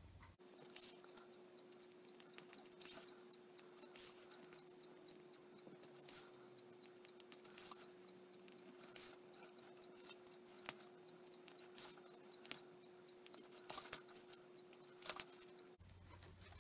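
Faint, scattered light clicks and scratchy rustles of a needle and thread being drawn through stiff fabric-paper pages as they are hand-stitched together, over a faint steady hum.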